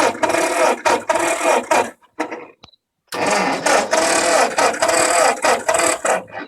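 Ford 8N tractor engine being cranked by its starter in two bursts of about two and three seconds, each stopping abruptly without the engine catching. This is the hard-starting, no-start fault the owner is trying to fix.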